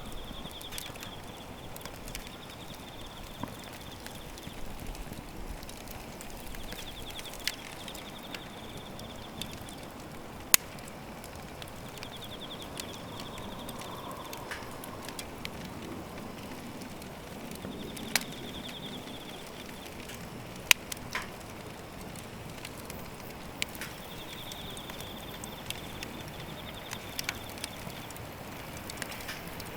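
Wood fire crackling in a fire grill: a steady soft hiss with sharp pops and snaps at irregular intervals, a few of them much louder than the rest.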